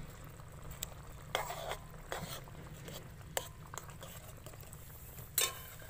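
Long metal spatula stirring a thick curry in a large metal kadai, giving a few short scrapes and clinks against the pan, the loudest near the end, over a steady low hum.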